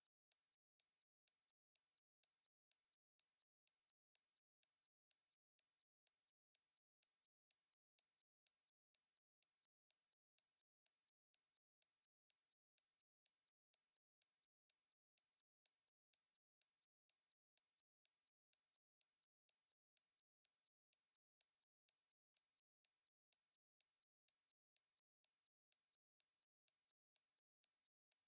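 Electronic security alarm beeping: a very high-pitched tone pulsing on and off evenly, about two beeps a second.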